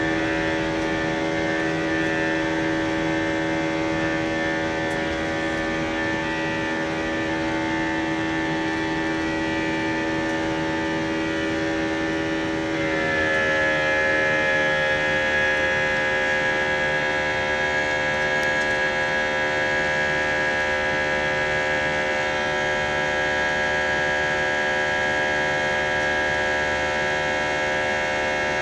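Airbus A319 jet engine heard from inside the cabin on the climb-out: a steady whine of many tones over a rushing drone. About 13 seconds in the pitch bends down and settles lower, as thrust is cut back from takeoff to climb power.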